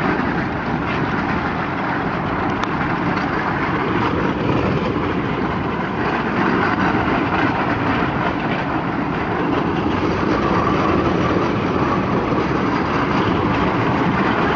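Small replica ride-on train in motion, giving a steady running and rolling noise with no change in level.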